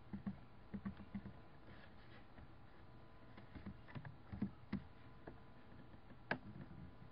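Faint computer keyboard typing and mouse clicks in short clusters of taps a few seconds apart, over a faint steady hum.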